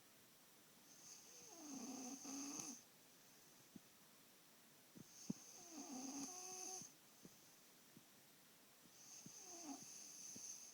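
A person snoring in slow, even cycles: three long snores about four seconds apart, each a drawn-out breath with a hiss and a pitched rasp that falls slightly in pitch.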